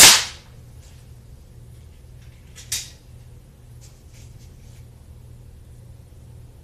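Mondial Oklahoma .177 smoothbore spring-piston pellet pistol firing: one sharp crack at the start that dies away quickly. About three seconds in comes a quieter snap, with a few light clicks before and after it.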